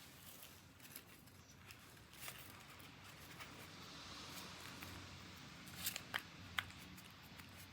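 Faint, scattered small clicks and taps, a handful over several seconds, over quiet room tone.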